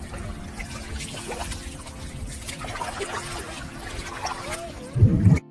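Shallow seawater trickling and sloshing around feet wading across a sandy tidal flat. About five seconds in there is a louder low rush, and then the sound cuts off suddenly.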